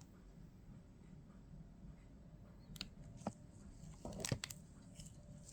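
Quiet room tone with a few faint, separate clicks, then a short run of soft handling noises about four seconds in.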